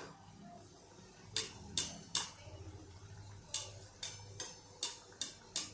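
A perforated steel skimmer clinking sharply against the side of a steel kadhai, about nine irregular taps starting over a second in, while a coriander vadi is turned in hot oil. Under the taps, the oil gives a faint sizzle.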